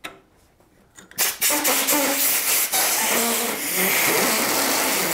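Compressed air hissing from a blowgun fed at 90 PSI, forced between a snowblower handlebar and its foam hand grip to swell the grip loose for removal. The steady hiss starts about a second in, with a wavering lower tone under it as air escapes past the grip.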